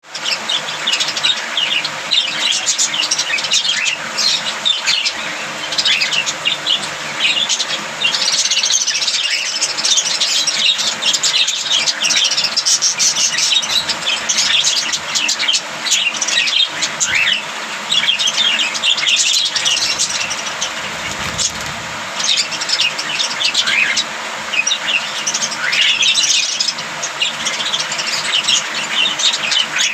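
A group of budgerigars chattering continuously, with many overlapping short chirps and warbles.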